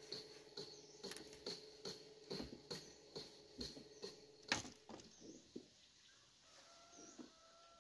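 Split bamboo poles being handled and knocked against a log: a run of light wooden knocks and creaks, about two a second, with one sharp crack about four and a half seconds in.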